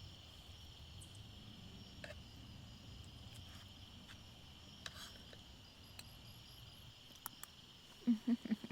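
Crickets chirping in a steady, continuous high trill, with a few faint clicks over it.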